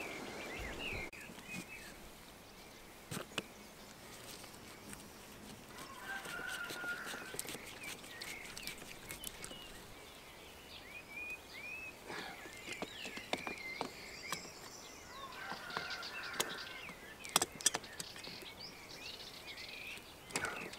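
Birds chirping in the background. Now and then a sharp click or knock from grips working a plastic water-pipe fitting, with a quick run of clicks near the end.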